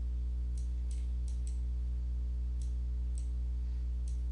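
A steady low electrical hum, with a handful of faint computer-mouse clicks scattered through it as vertices are selected and dragged.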